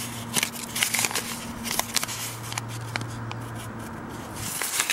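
Scattered clicks and crackles of handling, with paper or thin material being rustled, over a steady low hum that drops out briefly about two seconds in and stops near the end.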